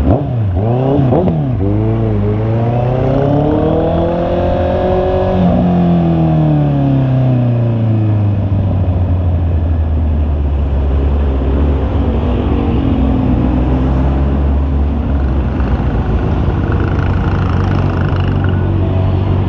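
Honda CB650R's inline-four engine under way. Its pitch dips sharply a couple of times near the start, then the revs climb for a few seconds, ease off and settle to a steady cruise.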